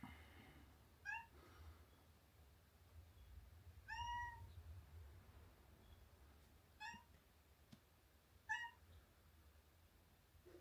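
Domestic cat meowing four times, short high calls a few seconds apart, the second a little longer than the rest, over a faint low hum.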